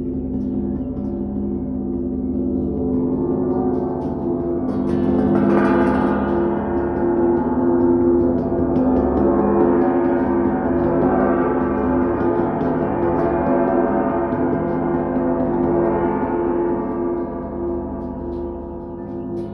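Large welded metal sheet sculpture struck with a felt mallet, ringing like a gong with a long sustained hum. A firmer stroke about five seconds in adds a brighter, shimmering ring over the hum.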